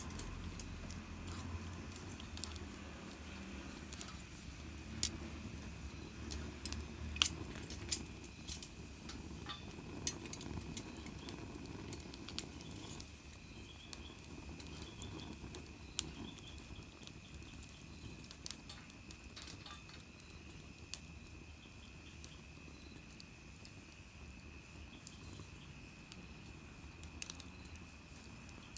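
Small wood fire crackling in a mini fire-pit stand: irregular sharp pops and snaps, with a faint steady high tone beneath.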